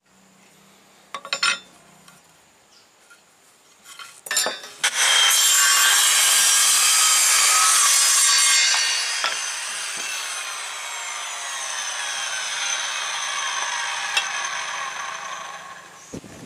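Handheld electric circular saw cutting a block of sonokeling (Indonesian rosewood): a couple of knocks early on, then the saw starts about four seconds in and cuts loudly for about four seconds. The trigger is then released and the blade spins down, its pitch falling over several seconds.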